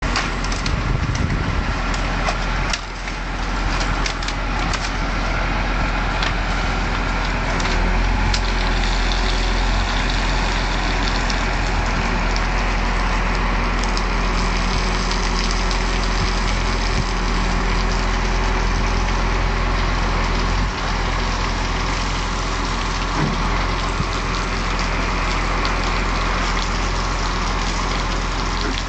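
Diesel engine of a truck-mounted crane running steadily, driving the hydraulic crane as it lifts a boat, with a strong low hum.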